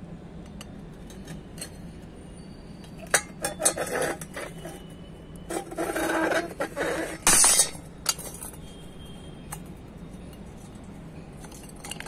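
Firecracker going off under an upturned steel tumbler: a few sharp pops about three seconds in, a rushing fizz for about a second and a half past the middle, then the loudest short burst, with metal clinking and clattering as the tumbler is knocked about.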